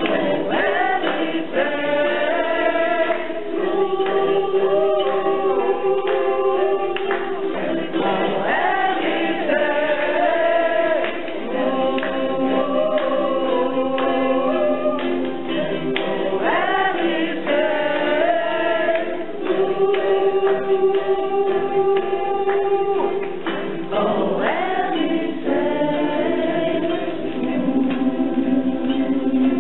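A mixed group of voices singing a song together, accompanied by ukuleles and a guitar, in sung phrases with held notes.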